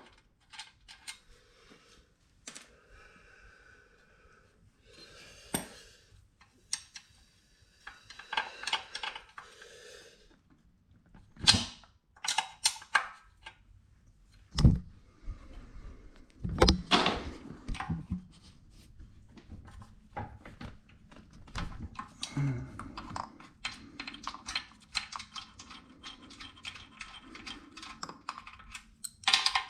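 Wrench backing out the bolts that hold a pressure washer pump to its engine: runs of rapid clicking, with metal clinks and a few sharper knocks near the middle.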